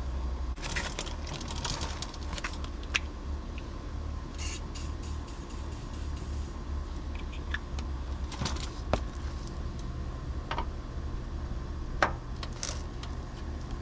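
Scattered sharp metallic clicks and taps of a wrench working a stuck seat bolt in a pickup cab, with a few short hisses in the first seconds. A steady low engine drone runs underneath.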